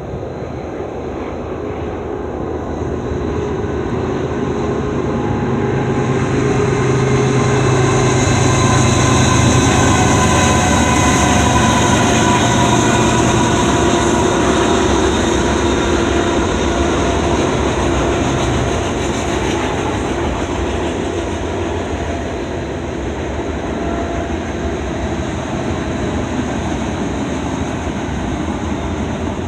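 A pair of GE diesel locomotives, CN ES44AC and ET44AC, leading an intermodal freight train pass by. The sound grows louder to a peak about ten seconds in, with engine tones that slowly drop in pitch as they go by, then settles into the steady rumble of the train's cars rolling past.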